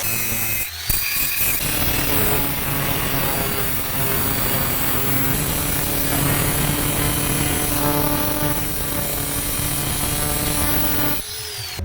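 A power tool running steadily on metalwork, a dense hissing noise with a steady hum under it, dropping away near the end.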